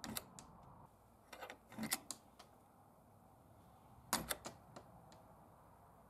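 Homemade welded steel automatic gate latch clicking and clanking as the door's steel strike plate swings in and the pivoting catch drops to lock it. The metal clicks come in a few short clusters, the loudest about two seconds and four seconds in.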